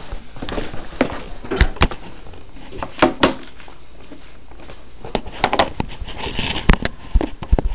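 Handling noise: irregular knocks and taps of objects being moved and set down, with some rustling in between, loudest in small clusters about a second and a half in, around three seconds, and near the end.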